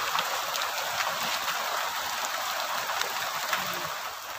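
Rain falling: a steady hiss with the patter of individual drops, getting quieter near the end.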